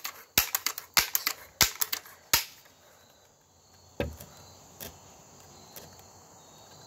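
BB gun being worked: a quick run of sharp clicks, mostly in pairs, over the first two and a half seconds, then a single duller thump about four seconds in and a few faint clicks.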